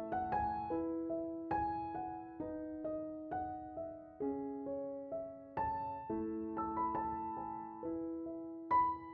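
Soft background piano music, slow notes and chords struck and left to ring.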